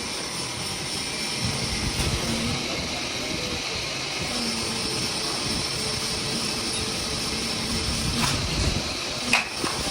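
A steady machine running with a hiss and a low rumble, with a few sharp knocks near the end.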